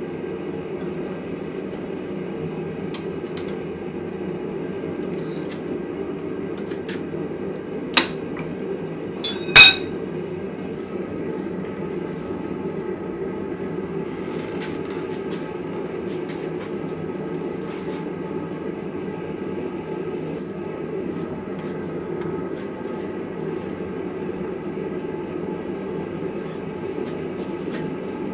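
A forge running with a steady low rushing noise, under light metal clinks as red-hot coil spring steel is levered with tongs around a bending post in a vise. About eight seconds in comes a sharp clank of steel on steel, and a moment later a louder clank that rings.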